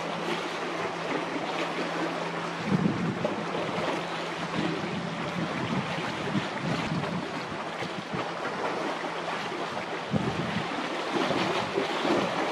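Strong wind buffeting the microphone over a choppy, whitecapped sea, in uneven gusts. A faint steady low hum runs underneath and stops about ten seconds in.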